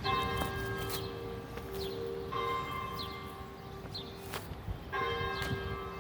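Church bells ringing, with a new strike about every two and a half seconds, three in all, each leaving a long, slowly fading ring. Short sharp clicks and brief high falling chirps sound between the strikes.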